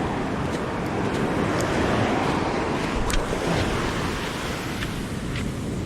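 Sea waves washing against the shore, mixed with strong wind buffeting the microphone, with a few faint ticks.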